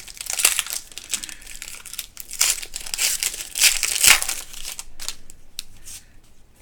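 Foil wrapper of a trading card pack crinkling and tearing as it is handled, a dense crackle for about five seconds that thins to a few scattered crackles near the end.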